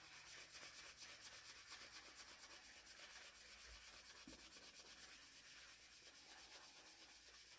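Faint hand sanding of a wooden hiking-stick shaft where it joins a deer antler: abrasive rubbing in quick back-and-forth strokes, about three a second.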